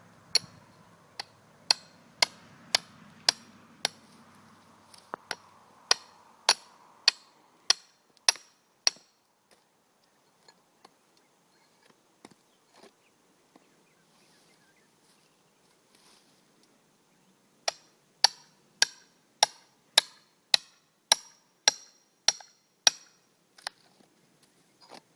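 Repeated hammer blows, about two a second, each a sharp strike with a brief bright ring. They come in two runs of a dozen or so strikes, with a pause of several seconds between them.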